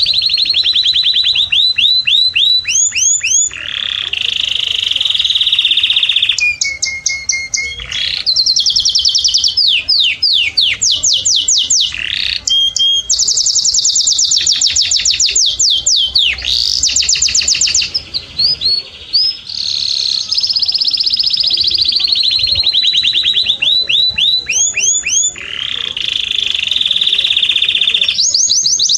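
Domestic canary singing a loud, continuous song of rapid trills, each phrase a fast run of repeated high notes, switching to a new phrase every second or two, with one brief falter about two-thirds of the way through.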